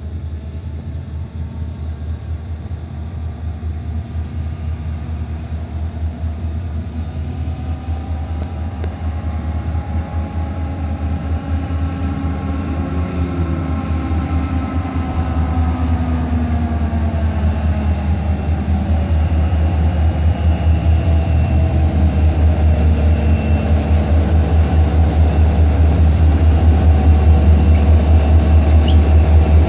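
Two EMD SD40-2 diesel-electric locomotives, each with a turbocharged 16-cylinder 645 two-stroke diesel, throttling up as they start a train: a deep pulsing engine beat that grows steadily louder, with whining tones that bend up and down in pitch midway.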